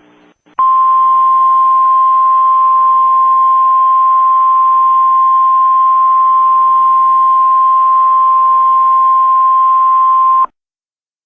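Emergency alert attention tone: a single loud, steady high beep lasting about ten seconds over radio hiss. It starts just after half a second in and cuts off sharply, marking the start of a new emergency broadcast message.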